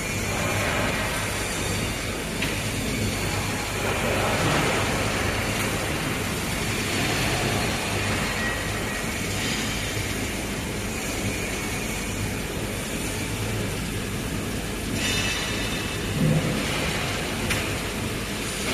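Overhead gantry sorting robot with vacuum suction-cup heads working over a laser-cut steel sheet: a steady mechanical hum and rumble with swells of hiss every few seconds, and a thump about sixteen seconds in.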